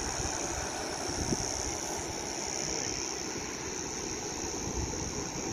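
A steady, high-pitched drone of insects in the scrub, over a low, gusty rumble of wind buffeting the microphone.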